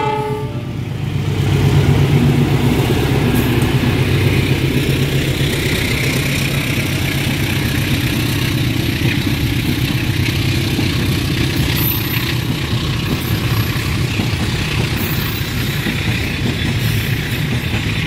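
Diesel locomotive running under power as its train passes close by, a steady low engine drone over the rumble of the moving train, swelling about two seconds in.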